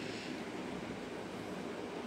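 Steady background room noise, an even hiss with no distinct events.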